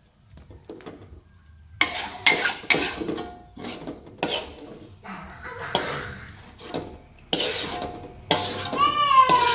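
Long metal spatula scraping and knocking against a wok as cooked sambal is scooped out, in a string of separate clanks and scrapes that begin about two seconds in. Near the end comes a high, wavering voice-like cry.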